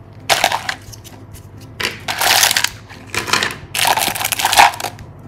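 Hands rummaging inside a large plastic surprise egg: hard plastic toy pieces clattering and cellophane wrappers crinkling, in several short bursts.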